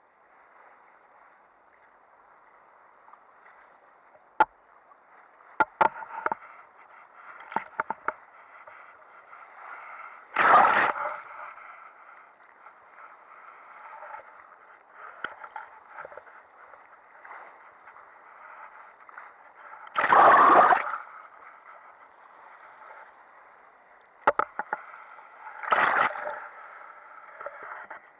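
Water rushing and gurgling along a sailboat's hull close to the waterline. Two big waves slap and splash over it about ten seconds apart, with smaller splashes and a few sharp ticks of spray between them.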